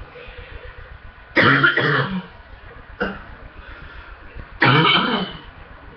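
A person coughing hard from chest congestion. There are two coughing bursts about three seconds apart, with a single short cough between them.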